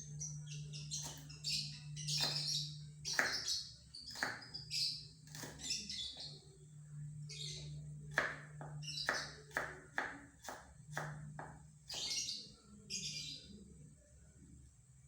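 A bird chirping in short repeated calls, mixed with a run of sharp taps or knocks that come about three a second in the second half.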